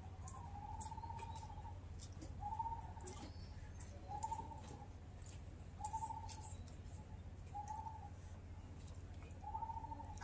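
A bird calling, about six short trilled notes repeated every second and a half to two seconds over a steady low hum.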